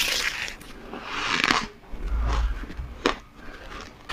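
Crunching and scraping of ice close to the microphone, in two grainy stretches, then a low thump about two seconds in and a sharp click about three seconds in.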